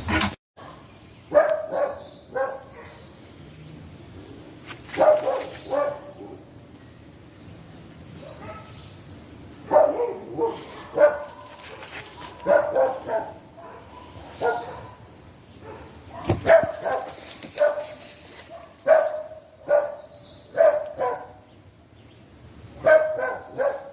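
A dog barking in repeated bursts of several short barks, with pauses of a few seconds between the bursts.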